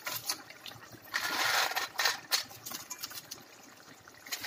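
Dried urad dal vadiyalu dropped into simmering drumstick curry in a stainless steel pan: two short rustling spells about one and two seconds in, with a few light metallic clicks.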